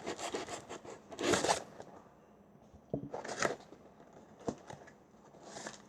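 Cardboard box flaps and packing being pulled open and rummaged by hand: several short bursts of rustling and scraping, with a click about four and a half seconds in.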